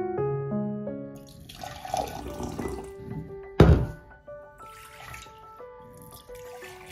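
Piano music with a sound of running water over it, and one loud thump about three and a half seconds in.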